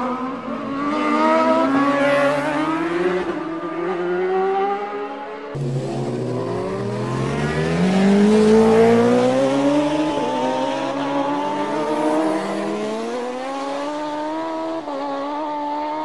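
Racing motorcycle engines at full throttle, the pitch climbing in steps as the riders shift up through the gears. An abrupt change about five and a half seconds in, then one long rise in pitch followed by more upshifts.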